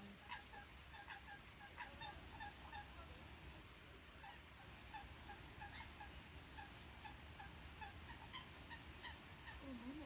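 Faint chorus of short, repeated bird calls from a flock over the reedbed, a couple of calls a second, over a steady low rumble.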